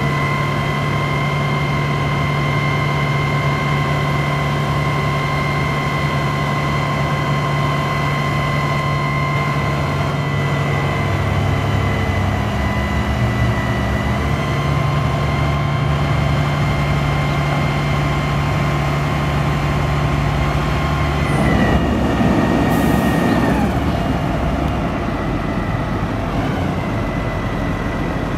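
Crane truck's diesel engine running with the hydraulic pump whining steadily as the National Crane boom is raised. The whine rises at the start, and about 21 seconds in it drops and a rushing noise lasts a couple of seconds before the whine settles again, quieter.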